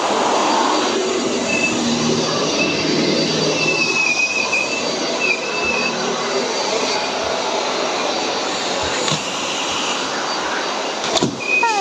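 Vacuum cleaner running steadily, with a high whistle that comes and goes.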